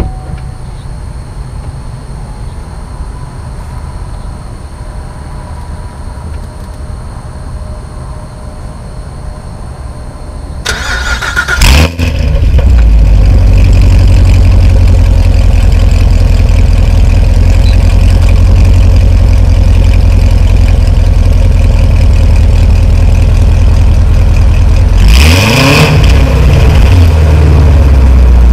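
Corvette C7 Stingray's LT1 V8, fitted with long-tube headers and an off-road X-pipe, cranks and fires about eleven seconds in with a sudden flare, then settles into a loud, steady idle. A few seconds before the end it gets one quick rev that rises and falls back to idle.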